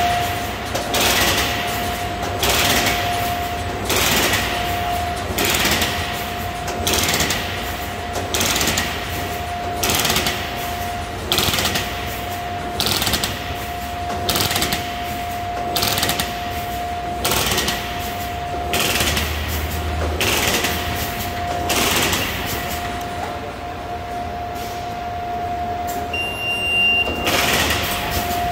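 44SWFFA-V plastic bag-making machine running its continuous hole-punch cycle: a regular mechanical stroke about once a second over a steady whine. A short electronic beep sounds near the end.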